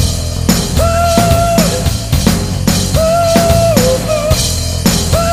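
Background rock music with a steady drum-kit beat and a held melodic phrase that repeats about every two seconds.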